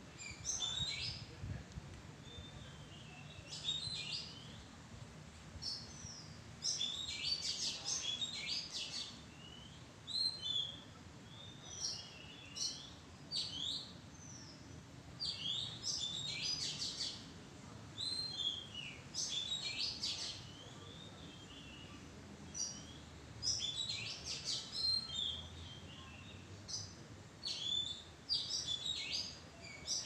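Oriental magpie-robin singing: short phrases of clear whistles, gliding notes and quick chattering notes, repeated every second or two with brief pauses between them.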